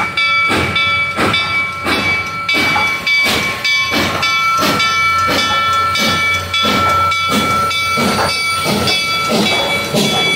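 Reading 2102, a 4-8-4 Northern steam locomotive, chuffing under steam as it moves slowly, with even exhaust beats at about two a second that quicken a little. A steady high tone sounds alongside the beats.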